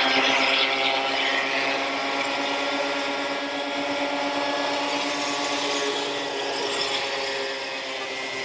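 Portable thickness planer running, its cutterhead knives planing a rough pallet board as it feeds through: a steady motor whine under a hissing cutting noise.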